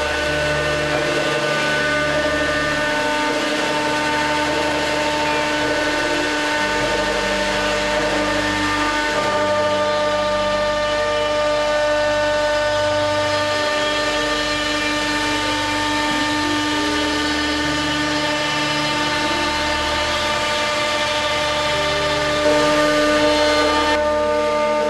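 6090 CNC router running: the spindle whines steadily as a round-nosed bit cuts grooves into a pine panel. Lower tones under the whine change pitch every second or two as the head moves from one cut to the next.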